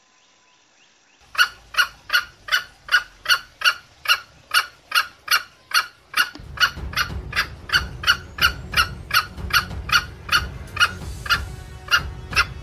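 Junglefowl clucking: an even series of short, sharp calls at about three a second, starting about a second in. A low rumbling noise joins underneath about halfway through.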